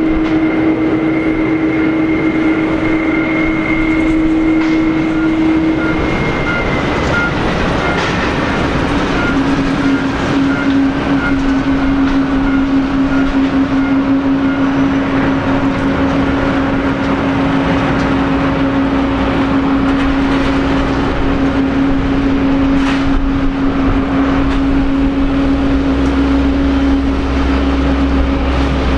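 Boeing 767-300 twin jet engines running steadily through its landing and rollout: a loud whine with two steady tones that drop slightly in pitch about six to eight seconds in, and a deeper rumble building near the end.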